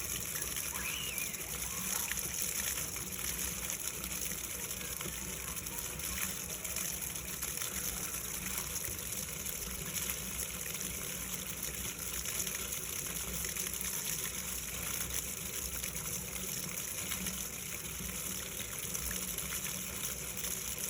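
Steady gush of water pouring out of a sump pump's discharge.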